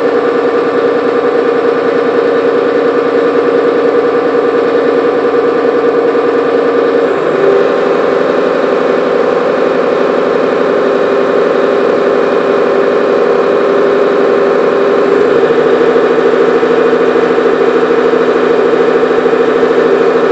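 ST05G-CNC Stirling engine running on its dynamometer test stand: a steady mechanical running hum with a fast, even pulsing. The tone changes abruptly twice, about 7 and 15 seconds in, and it is a little louder after the second change.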